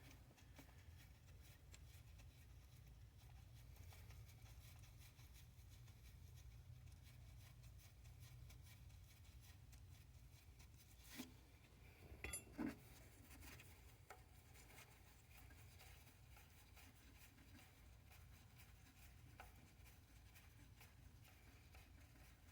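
Near silence: a steady low hum, with a few faint clicks about halfway through.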